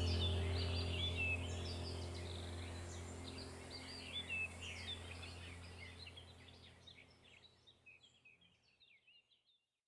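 Small birds chirping and twittering over a low steady hum, the whole fading out over about seven seconds and leaving silence.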